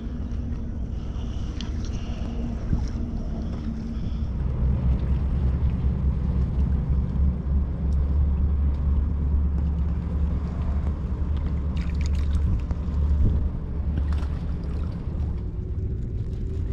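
Steady low rumble of wind and open water around an inflatable kayak at sea, with a faint steady hum underneath. A few light knocks come in the second half.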